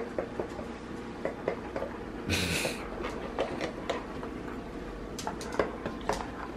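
Golden retriever mouthing and chewing a silicone oven mitt on someone's hand: small wet clicks and rubbing from its teeth and slobbery mouth, with a short louder rush of noise about two and a half seconds in.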